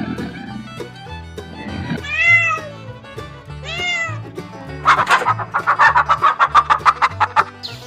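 Two drawn-out cat meows, each rising and then falling in pitch, over a light background music track. They are followed by a longer call of about two and a half seconds made of quick, even pulses, roughly five a second.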